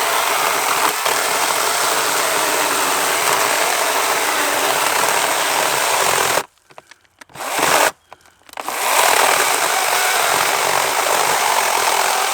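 SunJoe 16-inch 40-volt cordless electric chainsaw cutting through an ash log with a steady motor-and-chain noise. It stops dead about six and a half seconds in, starts briefly, stops again and then resumes: the chain binding in the cut and stalling the saw.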